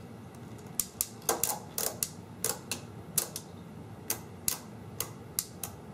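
1949 R.C. Allen Model 75 mechanical adding machine, its operating handle pulled slowly, giving a run of sharp metallic clicks, about three a second and unevenly spaced, starting about a second in, as its spring-loaded latches catch one after another.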